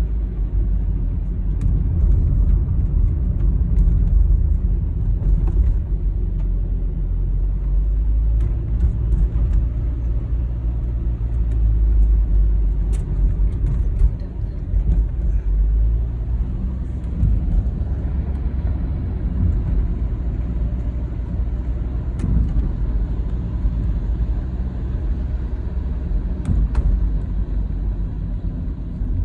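Car driving along a road: a steady low rumble of engine and tyre noise, with a dip in loudness about halfway through.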